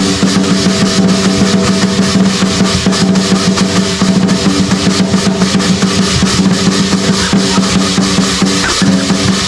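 Lion dance drum beaten in a fast, dense roll with cymbals clashing, over a steady droning tone underneath.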